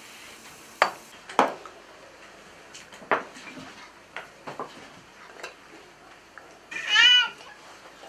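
Aluminium kettle and cups knocking and clinking against a gas-stove grate and a kitchen counter, a handful of separate sharp clinks. A short high-pitched cry, rising then falling, about seven seconds in.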